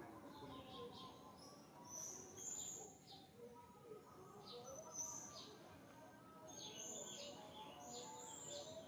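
Wild birds chirping and calling: short high chirps repeat every second or so, with fainter lower whistled notes underneath.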